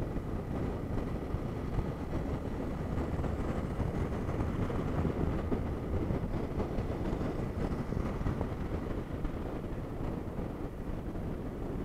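Motorcycle cruising at highway speed, heard from a camera mounted on the bike: a steady rush of wind and road noise over the running engine.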